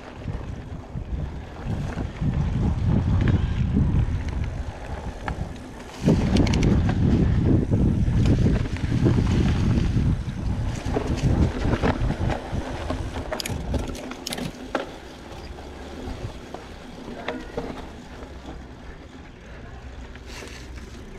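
Mountain bike riding dirt singletrack: wind buffeting the microphone over a rumble of tyres on the trail, with scattered rattles and clicks from the bike. It gets louder suddenly about six seconds in and eases off in the second half.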